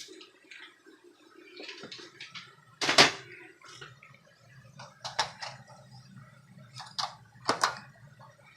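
Several sharp knocks and clicks, the loudest about three seconds in and others near the end, over a low steady hum.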